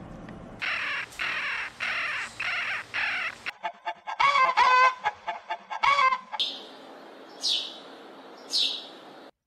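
Domestic hens clucking, a run of short calls and one longer drawn-out one, followed by a sparrow giving three high chirps that fall in pitch. Before the hens, a quick series of harsh rasping bursts is heard.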